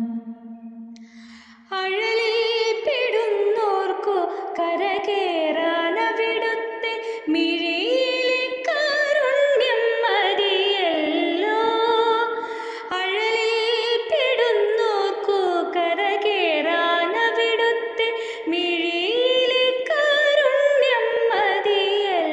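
Instrumental interlude of a Malayalam devotional song. A held note fades out over the first second or so, then about two seconds in a melodic lead enters, playing a continuous ornamented line with many gliding notes.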